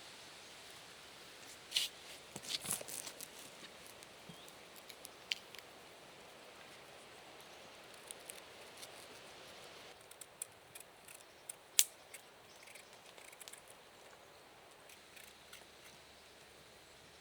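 Scattered small sharp clicks and snaps over a faint steady hiss. There is a cluster about two seconds in and another from about ten seconds in, the loudest snap coming about twelve seconds in.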